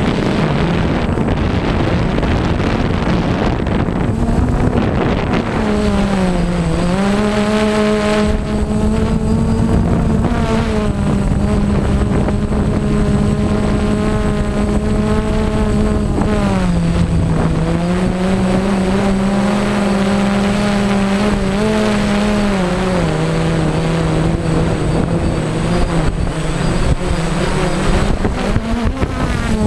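Multirotor drone's electric motors and propellers, heard from its onboard camera: a steady hum whose pitch steps down and back up several times as the throttle changes during the descent. Wind rushes over the microphone in the first few seconds.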